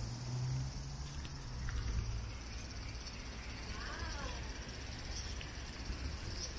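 Cicadas droning in a steady, even high-pitched buzz, with a low rumble underneath and a brief chirp about four seconds in.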